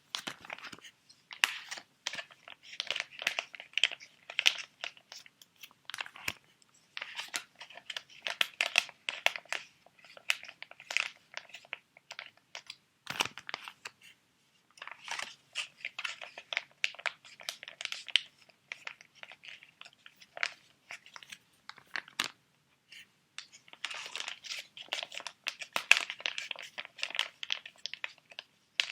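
Plastic sheet mask packets crinkling as they are handled, in bursts of a few seconds with short pauses between.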